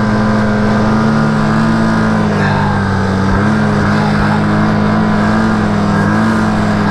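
Arctic Cat F1100 four-stroke snowmobile engine running at a steady throttle while the sled carves through powder, its pitch dipping slightly and recovering a few times.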